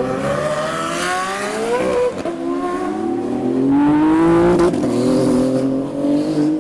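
A sports car engine accelerating hard through the gears. Its pitch climbs steadily, drops at an upshift about two seconds in, climbs again and drops at a second upshift near five seconds.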